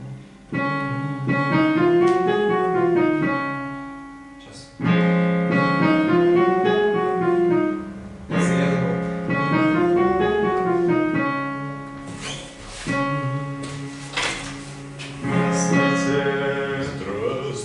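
A voice singing a warm-up phrase over piano chords: the phrase rises and falls in pitch and is repeated three times, each time after a fresh piano chord.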